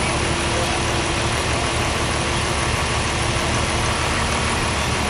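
Steady jet roar from a C-5 Galaxy's four turbofan engines as the transport flies past low over the airfield.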